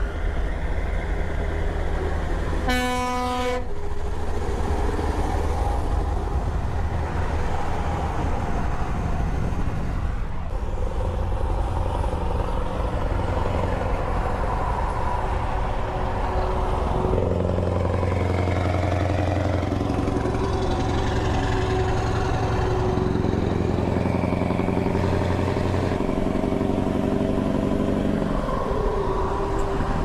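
Scania 164 L 580's V8 diesel with an open exhaust pipe running as the truck drives along, with one horn blast about a second long about three seconds in. The exhaust note gets stronger past the halfway mark.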